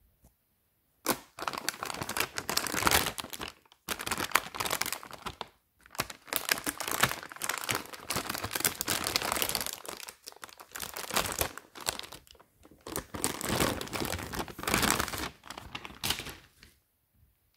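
Packaging being handled and unwrapped, crinkling and tearing in about five bouts with short pauses between them.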